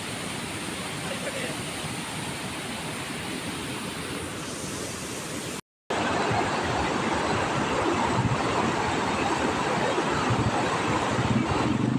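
Fast-flowing floodwater rushing over a road and then through a rocky stream, a steady noisy wash of water. A little before halfway the sound cuts out for a split second and comes back louder.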